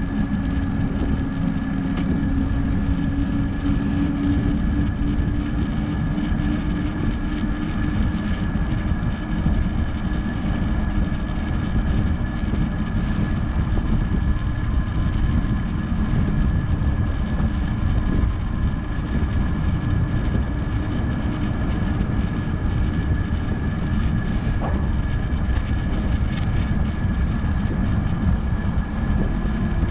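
Wind buffeting a GoPro action camera's microphone as a bicycle coasts fast downhill: a dense low rumble with a steady thin high whine over it. A lower hum fades out about four seconds in.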